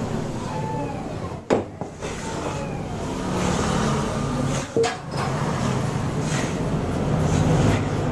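Steady low mechanical rumble in the background, with two sharp clicks, about one and a half seconds and five seconds in.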